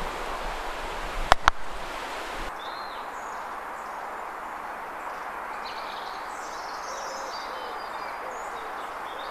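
Croquet mallet striking a ball, and a split second later that ball knocking another croquet ball away: two sharp clacks in quick succession. Then outdoor ambience with faint bird chirps.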